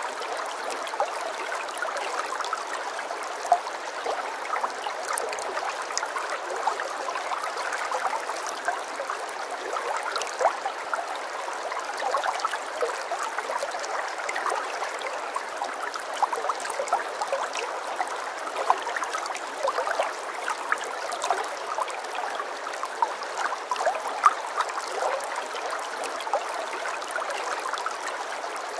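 Running water trickling and gurgling over stones in a steady stream, with many small splashes and nothing deep or booming.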